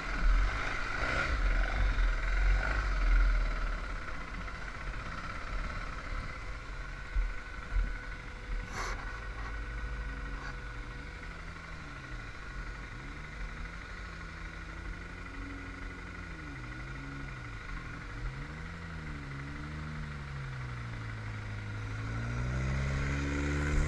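Motorcycle engine running under a rider's throttle, its pitch rising and falling again and again, over a steady low rumble and wind noise. The engine note stands out more clearly from about ten seconds in.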